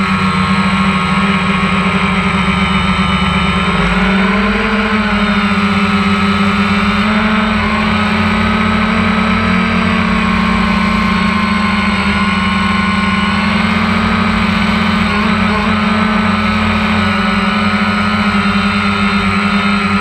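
DJI Phantom 1 quadcopter's motors and propellers buzzing steadily as it flies. The pitch shifts slightly a few times as the throttle changes.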